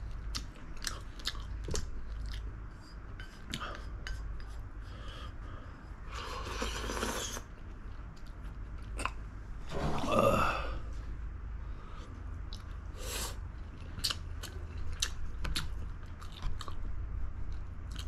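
Close-miked chewing and biting of spicy braised chicken (dakbokkeumtang), with many small wet clicks and smacks. A few louder noisy mouth sounds come through, the loudest about ten seconds in.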